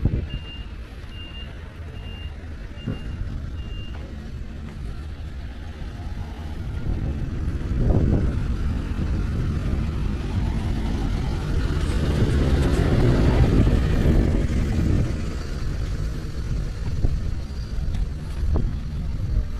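A vehicle's reversing alarm beeping about twice a second, stopping about four seconds in. Then street traffic: a vehicle rumbles past about eight seconds in, and a louder, longer pass follows a little after halfway.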